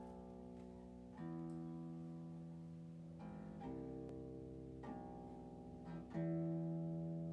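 Solo concert harp playing low-register chords, a new chord plucked every second or two and each left to ring and fade slowly; the loudest comes near the end.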